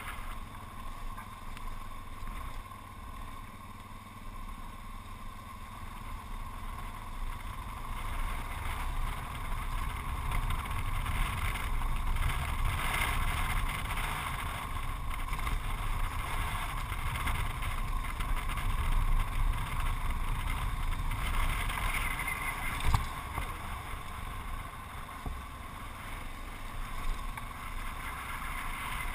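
Yamaha XT660Z Ténéré's single-cylinder engine running steadily as the motorcycle is ridden on a gravel road, heard over a low rumble of road and wind. It grows louder about ten seconds in, and a single knock comes about three-quarters of the way through.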